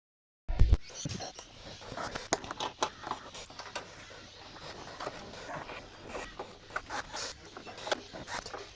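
Scattered clicks, knocks and scrapes of motorcycle bodywork being refitted by hand, starting after a moment of dead silence about half a second in.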